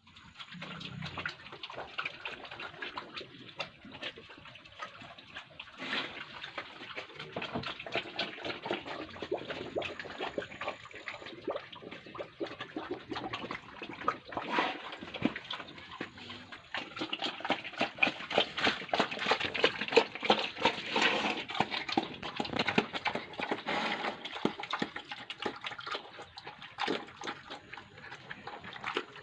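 A pig eating wet feed: continuous wet chewing and smacking, a dense run of quick clicks that grows louder past the middle.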